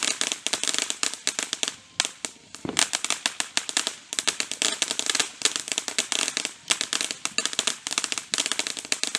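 Fireworks going off in a fast, dense crackle of sharp pops, several a second, with brief lulls about two and four seconds in.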